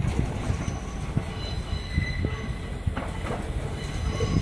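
Regional train approaching on curved track, its wheels squealing in thin high tones over a low rumble, with a few sharp clicks.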